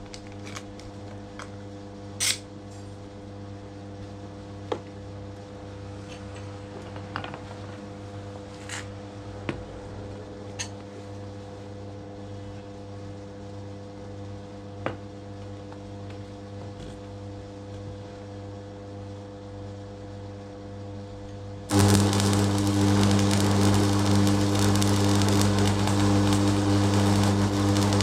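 A steady electrical hum with a few scattered small clicks and clinks. About 22 seconds in, a much louder electric machine switches on suddenly and runs steadily with a strong hum and hiss.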